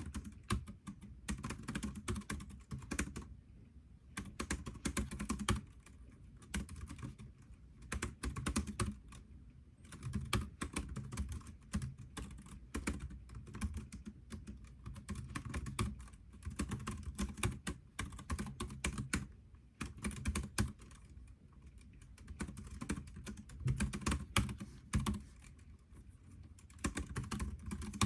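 Typing on a computer keyboard: dense runs of key clicks lasting a few seconds each, broken by short pauses.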